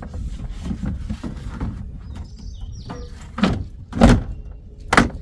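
Plastic RV air-conditioner shroud being handled and fitted onto the rooftop unit: a series of knocks and clunks, the loudest three coming about a second apart near the end, over a steady low rumble.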